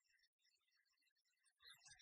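Near silence, with faint voice-like fragments.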